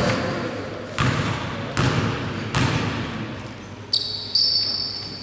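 A basketball being bounced on a hardwood gym floor by a free-throw shooter: four bounces about 0.8 s apart, each ringing in the hall, followed by a couple of short high squeaks near the end.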